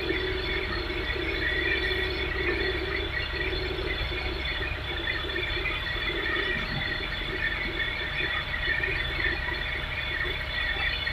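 Hitachi ZX225 excavator running: a steady low engine rumble under a high, wavering squeal that does not let up.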